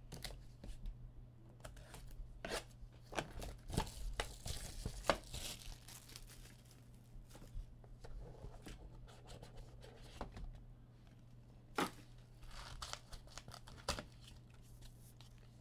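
Trading card packs being torn open, with foil wrappers tearing and crinkling and scattered clicks and taps of handling. A low steady hum runs underneath.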